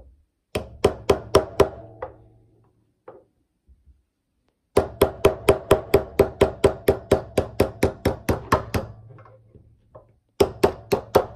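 A small ball-peen hammer rapidly tapping a 3/32 pin punch to drive out the cross pin that holds the cocking piece to a Remington Model 7 firing pin. Each light blow rings briefly. The blows come in three runs: a handful near the start, a long run of about twenty at roughly five a second in the middle, and a few more at the end.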